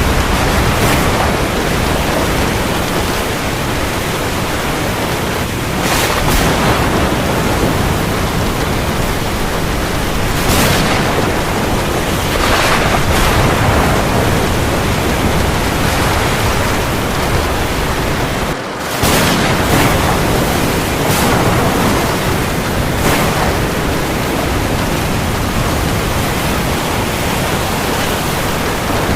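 Heavy rain falling on the sea: a dense, steady hiss with several brief swells and a short dip about two-thirds of the way through.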